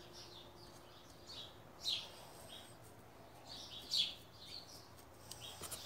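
A few short, high bird chirps, loudest about two seconds in and again about four seconds in, over a faint steady background hum.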